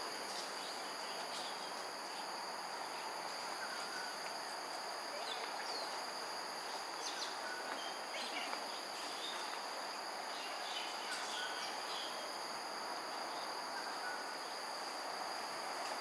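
Steady high-pitched insect chorus of several unbroken tones over an even background noise, with faint short chirps scattered through.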